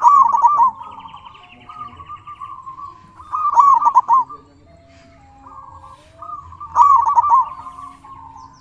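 Zebra dove (perkutut) cooing: three loud, trilling coo phrases about three seconds apart, with quieter cooing in between. A high trill from another bird is heard about a second in.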